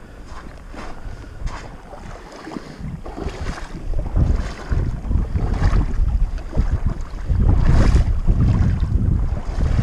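Wind buffeting the camera microphone in gusts, a low rumble that grows louder about three to four seconds in.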